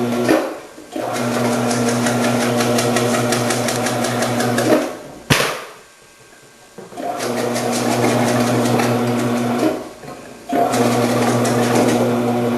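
Electric commercial vegetable slicer running and slicing peppers through its slicing disc: a steady motor hum with a fine rapid chatter of cutting. It stops and restarts a few times, with a sharp knock about five seconds in.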